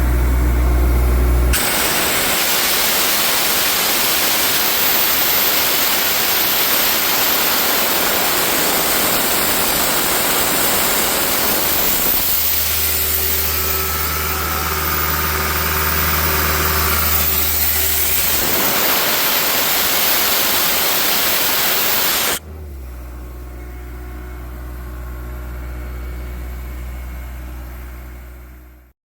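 Ingersoll Rand 250 CFM portable diesel air compressor, driven by a John Deere 4045 four-cylinder turbo diesel, running with compressed air blowing off in a loud steady hiss. The hiss stops suddenly near the end, leaving the diesel idling before the sound fades out.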